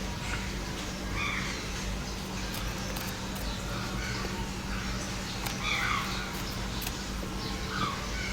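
Crows cawing repeatedly in the background, short calls spaced irregularly, over a steady low hum.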